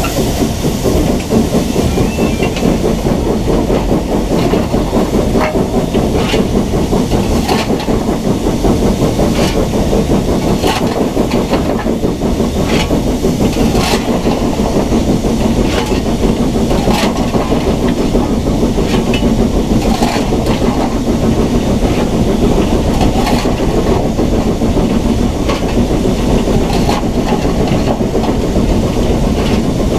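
BR Standard Class 9F 2-10-0 steam locomotive running under way: a steady heavy rumble and steam hiss, with irregular sharp clacks scattered through it.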